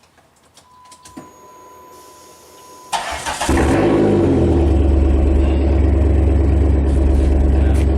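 2004 Chrysler PT Cruiser GT's turbocharged 2.4-litre four-cylinder being started with its muffler removed: a short crank about three seconds in, the engine catching with a brief flare of revs, then settling into a loud, steady idle through the open, unmuffled exhaust.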